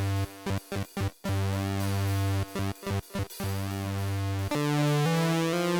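Intro music: held synth-like chords broken by several abrupt stutter-cuts, changing about four and a half seconds in to a line of short stepping notes.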